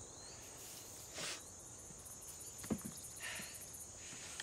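Quiet outdoor ambience with faint insects chirring, and a few soft rustles and clicks as a hand grenade is lifted out of straw packing in a crate.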